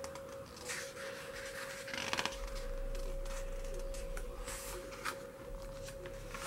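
Pages of an album photobook being handled and turned: a string of short paper rustles and slides, the fullest about two seconds in. A steady faint hum runs underneath.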